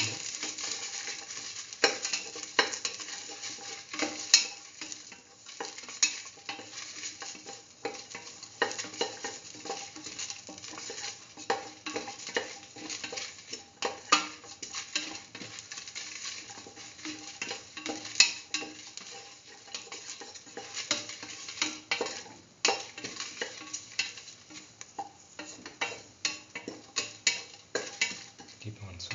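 A spatula scraping and knocking irregularly against a stainless steel pan as sliced onions and dried red chillies are stirred, with food sizzling as it fries in a little oil.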